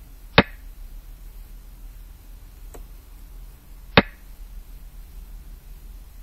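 Two sharp clicks about three and a half seconds apart, the move sound of a computer xiangqi board as a piece is placed, with a faint tick between them over a low steady hum.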